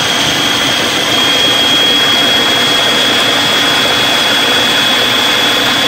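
Food processor motor running steadily with a constant high whine, blending butter, eggs and cottage cheese into a smooth dough mix.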